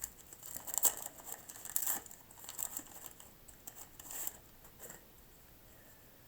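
Waxed-paper wrapper of a 1985 Topps baseball card pack crinkling and tearing as the pack is opened and the cards inside handled, in several short crackling spells that stop about five seconds in.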